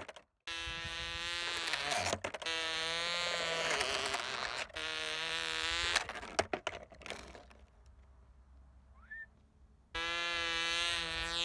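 Small model-plane motor driving its propeller at full speed: a steady, high buzz with a clear pitch, broken off sharply several times across repeated take-off attempts from the ground. It goes quiet for a couple of seconds, then starts up again near the end.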